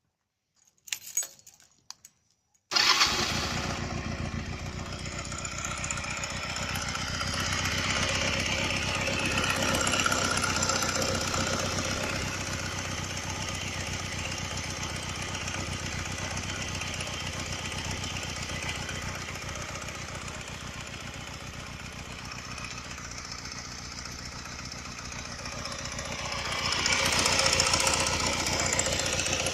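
A few short clicks, then the Honda Rebel 125's engine starts about three seconds in and runs, getting louder briefly twice as it revs up a little. It makes a strange noise, which the owner suspects is a loose camshaft chain after fitting new cylinders and pistons.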